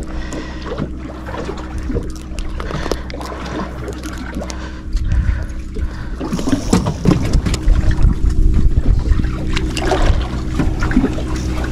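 Fishing boat's engine running with a steady hum. A louder, rough rumbling noise joins about five seconds in.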